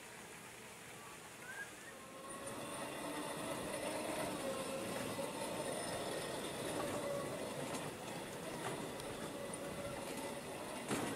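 A motor's steady hum with a slightly wavering pitch, coming up about two seconds in, and a single sharp knock near the end.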